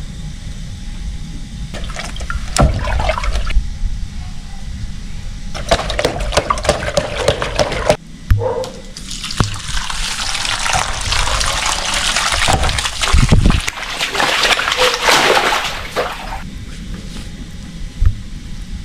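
Water rushing and splashing, growing louder about halfway through and easing off near the end, with a few sharp knocks.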